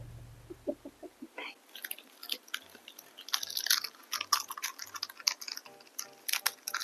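Close-miked chewing and crunching of food into an ASMR microphone: an irregular run of crisp clicks and crunches. A low hum fades out over the first second.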